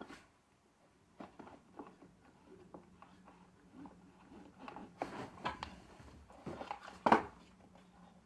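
Scattered plastic clicks and knocks as the vacuum cleaner's cord-winder housing and parts are handled and probed, the sharpest about seven seconds in, over a faint steady hum.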